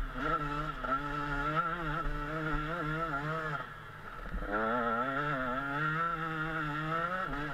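KTM 125 SX two-stroke single-cylinder motocross engine running under throttle with the pitch rising and falling, backed off for a moment about halfway through and then opened up again.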